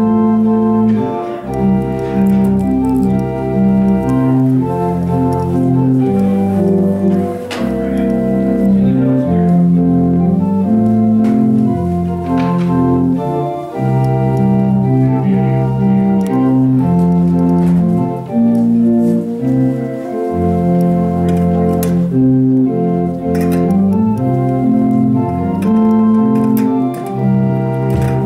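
Organ playing a postlude after the closing benediction: held chords with a moving bass line, the notes changing every second or two.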